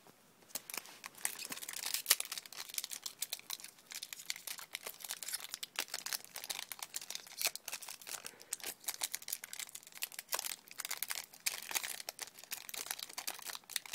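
Foil Yu-Gi-Oh booster pack wrapper being torn open and crinkled by hand: a dense, irregular run of sharp crackles.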